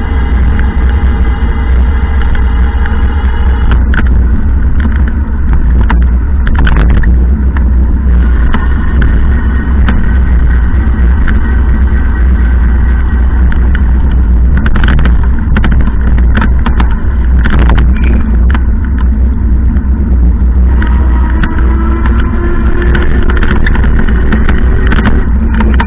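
Road noise of a car driving on wet roads, heard from inside the cabin: a heavy, constant low rumble of engine and tyres, with the engine's pitch gliding up and down as the car speeds up and slows, and scattered clicks and knocks.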